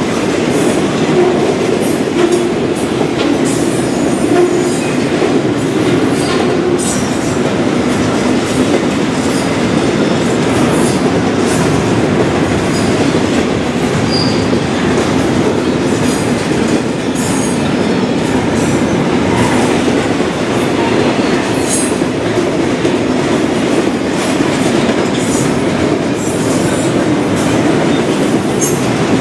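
Freight train cars rolling past at close range: a steady, loud rumble of wheels on rail, with clicks at the rail joints and many short, high-pitched wheel squeals.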